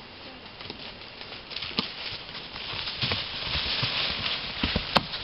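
Horses walking through dry fallen leaves, hooves crunching and rustling in the leaf litter. The sound grows louder from about a second and a half in, and a sharp click comes near the end.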